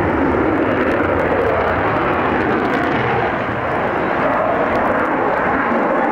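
Jet fighter's engine noise, a loud steady rush, as the fighter climbs straight up in an air display.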